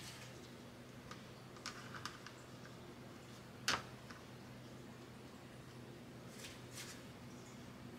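Hands laying a thin crêpe onto a wood-grain tray and smoothing it flat: a few light clicks and taps, one sharper tap a little before the middle, and two soft brushing sounds near the end.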